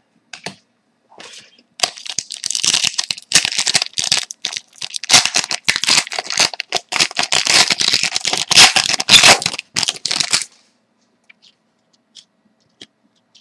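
Wrapper of a 2012-13 Panini Rookie Anthology hockey card pack being torn open and crinkled in the hands: a dense, crackling rustle for about eight seconds, then it stops, leaving only a few faint ticks of cards being handled.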